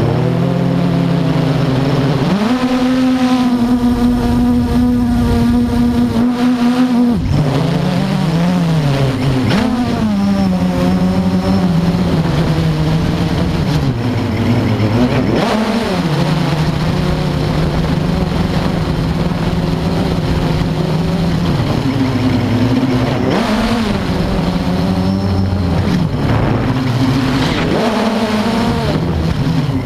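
Blade 350 QX quadcopter's four brushless motors and propellers whining, heard from the camera on board. The pitch jumps up about two seconds in, holds, then drops about seven seconds in, with several shorter swoops up and down as the throttle changes.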